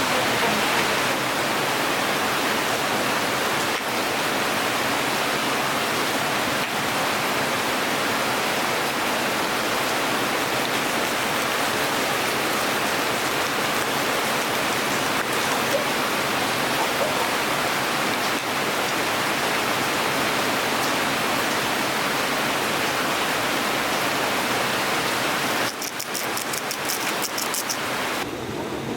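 Heavy monsoon rain pouring steadily. About 26 seconds in it cuts to a quieter sound with a quick run of high ticks.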